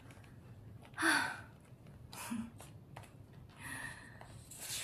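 A young woman's soft breathy laughter: a few short puffs of breath, the loudest about a second in.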